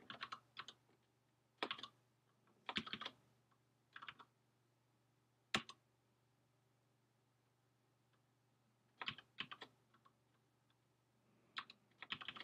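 Faint computer keyboard typing in short, sparse bursts of a few keystrokes, with a pause of about three seconds in the middle, over a faint low hum.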